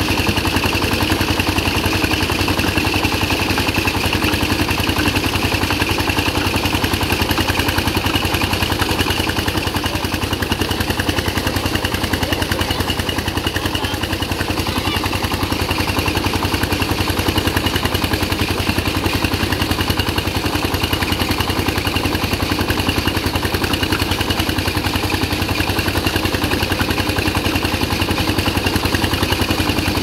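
Miniature DIY rice thresher running steadily: its small motor drives the threshing drum with an even, fast-pulsing mechanical run, as threshed rice grain pours out of the chute.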